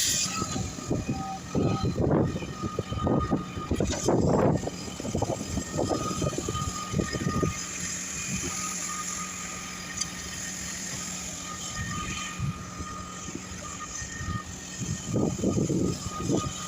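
Concrete pump truck running: a steady engine hum, with irregular low rumbling and knocking through the first several seconds and again near the end.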